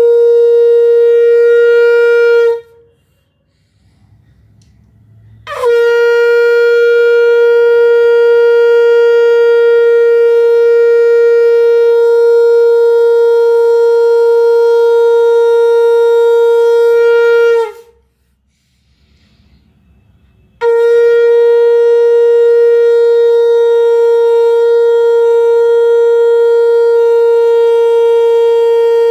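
Conch shell (shankh) blown in long, steady blasts of one held note. A blast cuts off about two and a half seconds in. After a pause of about three seconds a new blast starts with a short upward scoop, holds for about twelve seconds and sags slightly in pitch as it stops. A third blast begins after another three-second pause and is still sounding at the end.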